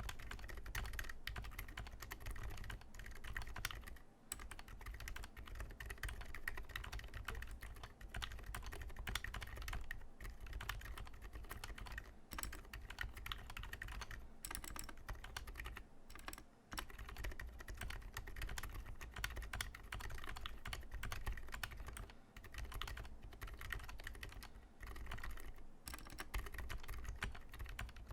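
Steady, rapid typing on a TADA68 65% mechanical keyboard in a wooden case, fitted with lubed Gateron Ink Black switches on MX Silent stems and ABS MT3 keycaps, recorded up close. The silenced stems damp the keystrokes into a soft, continuous patter, with brief pauses about 4 and 16 seconds in.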